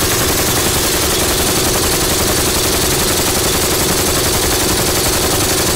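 7.62×39 mm RPK light machine gun firing one long continuous full-auto burst at about eleven rounds a second.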